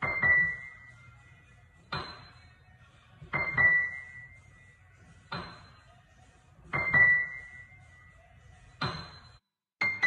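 Single high notes struck one at a time on an electric keyboard, about one every second and a half. Each starts with a soft knock and rings briefly before dying away. The notes come quicker near the end.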